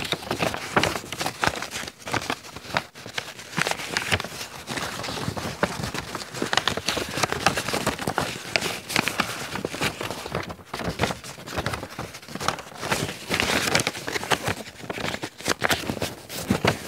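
Sheet of paper rustling and crinkling close to the microphone, with irregular crackles as it is handled and folded.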